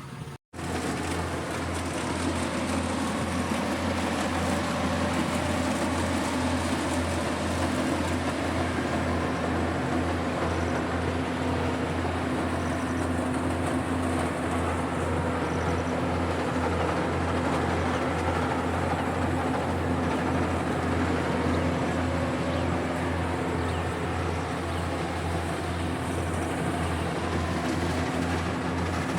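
A harvesting machine's engine running steadily with a constant low drone and mechanical noise, starting abruptly about half a second in.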